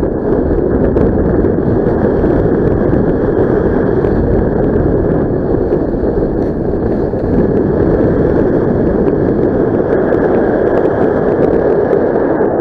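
Loud, steady wind rush buffeting the camera microphone from airflow in paragliding flight.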